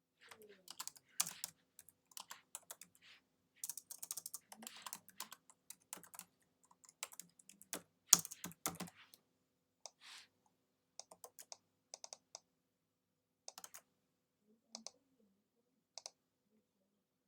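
Typing on a computer keyboard: quick runs of keystrokes through the first half, then scattered single key taps, over a faint steady hum.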